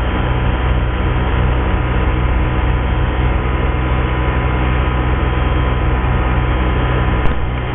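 Tractor engine running steadily at a constant speed. A single sharp click comes near the end.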